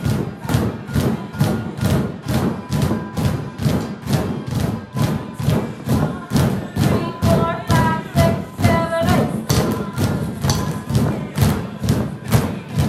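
Upbeat recorded music with a steady beat, about two a second, and drumsticks thudding on inflated exercise balls in time with it.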